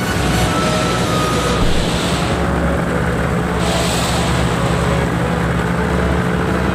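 Paramotor engine and propeller running steadily in flight, a constant drone under a rush of wind.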